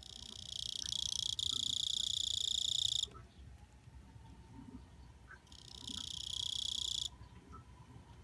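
Kuchiki-korogi (Duolandrus coriaceus), a rotten-wood cricket, singing: two high, buzzing trills. The first lasts about three seconds and swells in at the start; the second, about a second and a half long, comes a little past the halfway point.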